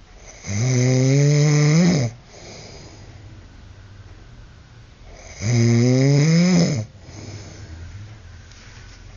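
A man snoring loudly: two long snores about five seconds apart, each rising in pitch toward its end.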